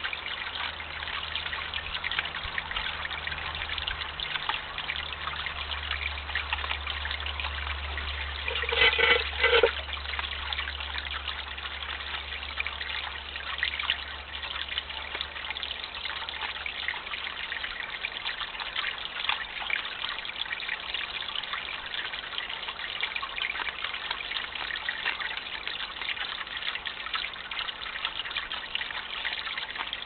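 Water trickling steadily from a small stone garden fountain into a dish. About nine seconds in, a wild boar gives a short pitched squeal in two quick pulses, the loudest sound.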